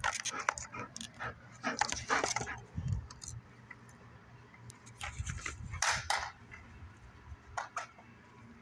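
Cane corso panting in several short bursts of breath.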